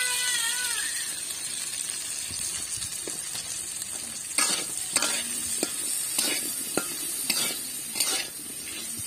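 Cubed potatoes sizzling in hot oil in an iron karai. From about four seconds in, a metal spatula scrapes the pan and turns them in a series of quick strokes.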